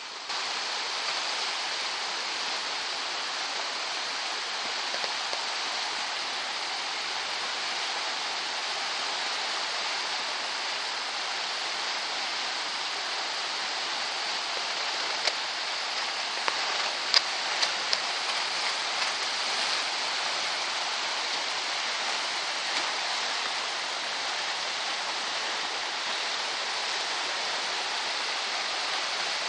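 Steady rushing water, with a handful of sharp clicks a little past the middle.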